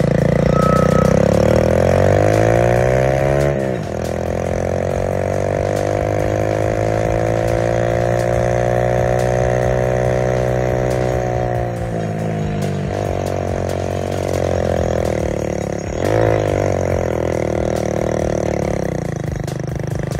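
Vehicle engine pulling under load, its revs climbing and then dropping sharply at gear changes about 4, 12 and 16 seconds in.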